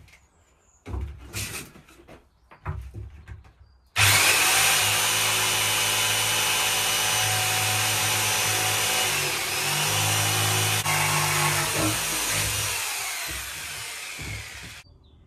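Electric jigsaw cutting calcium silicate fire board: a few knocks as the board and saw are set, then the saw starts suddenly about four seconds in and runs steadily through the cut, easing off and stopping just before the end.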